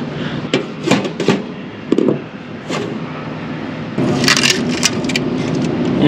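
Scattered clicks and rustles of handling, then, about two-thirds of the way in, a louder crackling rip of adhesive tape being pulled off its roll.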